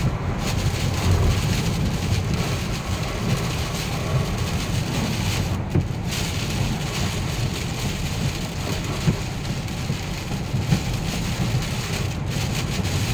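Heavy hurricane rain drumming on a moving car, with steady road and wind noise and a low rumble inside the cabin.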